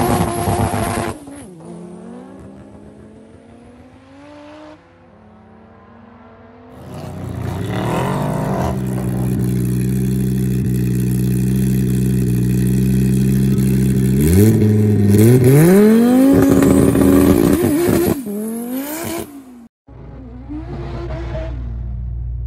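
Drag racing cars' engines: one car running past loudly and fading off down the strip, then engines held at high revs and revving at the start line, rising steeply in pitch as they accelerate away, with more revving near the end.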